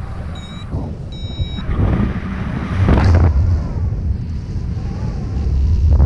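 Airflow buffeting the microphone in flight, coming in loud gusts. In the first second and a half a paragliding variometer gives a few short electronic beeps.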